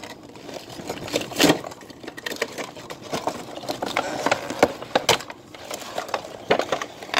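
Clear-plastic and cardboard doll box being handled and pulled open: crinkling and scraping with several louder sharp snaps and clicks.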